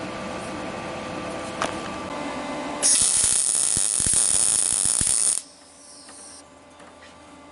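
Electric grinder running free, then pressed onto a steel weld for about two and a half seconds of loud, high-pitched grinding, then switched off and winding down. This is weld cleanup.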